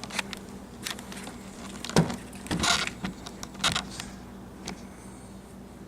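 A few sharp handling knocks and clicks with a brief rustle, over a faint steady hum.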